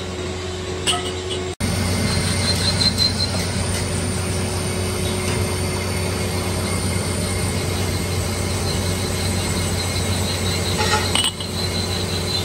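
Electric lathe running steadily with a constant motor hum while machining a steel cylinder sleeve under coolant. Sharp metal clinks come about a second in and again near the end.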